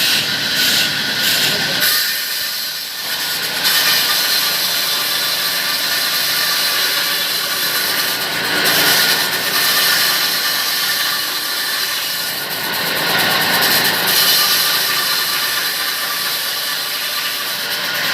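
Sawmill saw cutting through palmyra palm wood: a continuous loud, hissing whine that swells and eases as the cut goes on.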